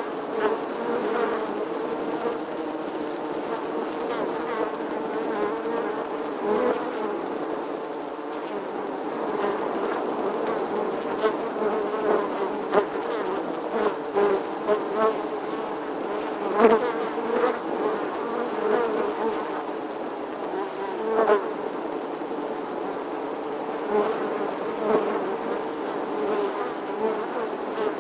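Bee buzzing continuously, its pitch wavering slightly, with brief louder swells every few seconds.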